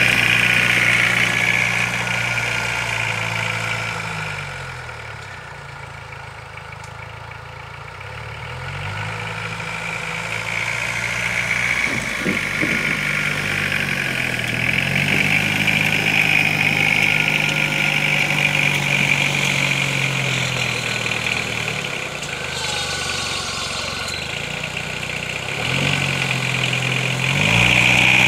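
Homemade ATV's Volkswagen 1.9 TD AAZ turbodiesel engine running, its revs dropping and rising again several times. The sound fades a few seconds in and comes back louder near the end.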